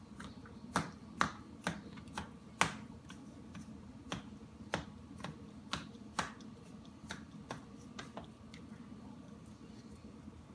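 Dog licking ice cream, its tongue making sharp wet smacks about twice a second, loudest in the first few seconds and growing fainter after.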